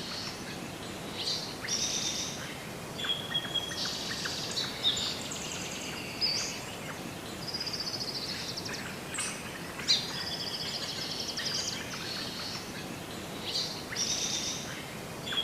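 Small birds calling and singing in the trees, with repeated high chirps and quick trilled phrases coming again and again, over faint steady outdoor background noise.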